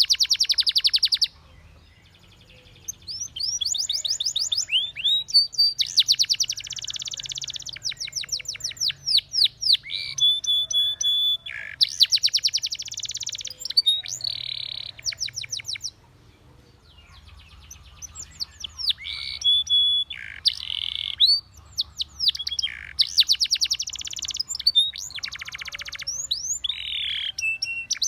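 Spanish Timbrado canary singing long phrases of fast repeated notes, dense rolls and swooping whistles. The song breaks off twice: about a second in and about sixteen seconds in.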